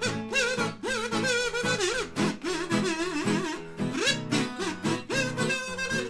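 A kazoo playing a melody over acoustic guitar accompaniment.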